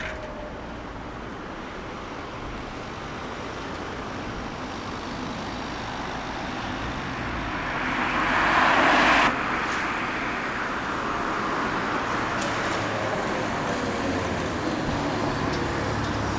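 Road traffic: a car passes close by, its tyre and engine noise swelling to the loudest point about eight seconds in and then cutting off abruptly. Steady traffic noise follows as a trolleybus moves through the junction.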